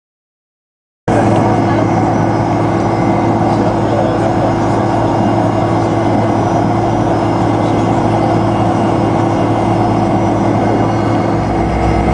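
About a second of silence, then the steady whine and hum of a Fokker 100's rear-mounted Rolls-Royce Tay turbofans heard inside the cabin as the jet taxis. A deeper rumble comes in near the end.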